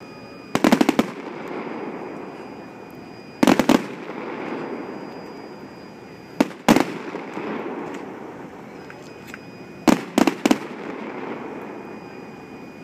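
Fireworks going off in four volleys, each a quick cluster of sharp cracks followed by a rumbling echo that dies away over a couple of seconds.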